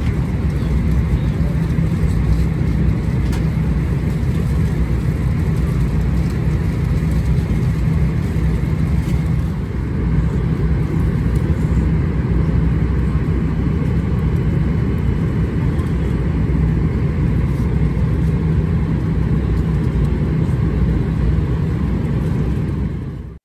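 Steady in-flight cabin noise of a Boeing 777-300ER heard from a passenger seat: a low rumble of airflow and its GE90 engines, fading out just before the end.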